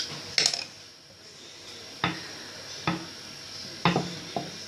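About five short clicks and knocks of small utensils (a knife, cutter or cup) against a hard surface while dough is being cut and shaped, the first about half a second in and the rest spread over the last three seconds.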